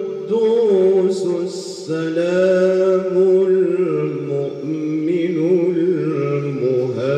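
A man reciting the Quran in the melodic tilawah style, holding long ornamented notes that slide and waver in pitch, with short breaks between phrases.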